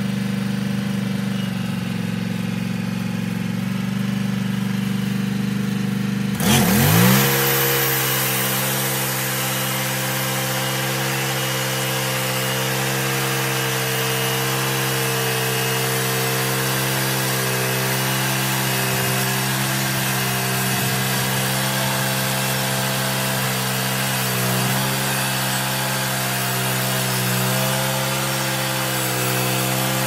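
Wood-Mizer LX150 portable bandsaw mill's engine running at idle, then revving up sharply about six seconds in and holding steady at high speed as the saw head travels down the log.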